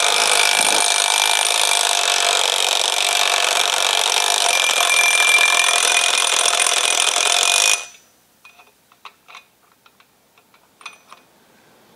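Cordless drill spinning a Ford Model T camshaft in its bearings to run it in: a steady whirring with a high whine that cuts off suddenly about eight seconds in. A few faint clicks and taps follow.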